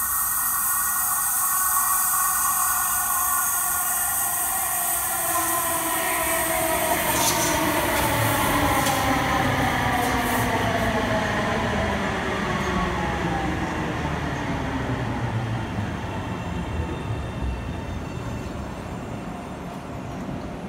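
Alstom Citadis Spirit light rail train arriving at a station platform and braking. Its electric drive gives a whine in several tones that fall steadily in pitch as it slows, over the rumble of wheels on rails, with a few sharp clicks partway through. The sound eases off near the end.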